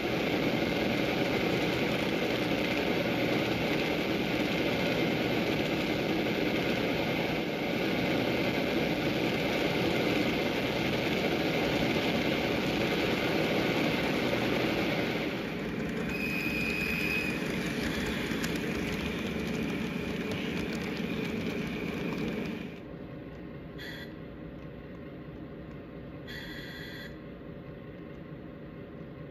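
Model trains running on plastic-roadbed sectional track: a steady rolling rattle of wheels on rails with the hum of the motors. The sound drops abruptly to a quieter level about 23 seconds in, with a few faint clicks after that.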